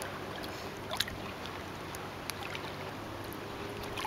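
Shallow sea water lapping and sloshing gently around a wader as she lowers herself into it, with a small splash about a second in.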